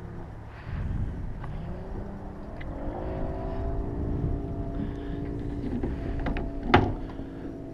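A boat motor rises in pitch about two and a half seconds in, then runs at a steady pitch over a low rumble. A single sharp knock sounds near the end.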